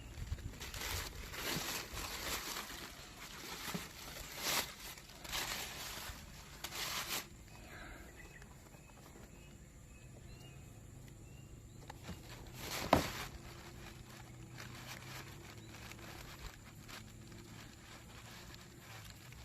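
Unboxing handling noises: rustling and shuffling of the shoebox and its wrapping in a run of bursts for the first seven seconds, then quieter handling with a single sharp knock about thirteen seconds in.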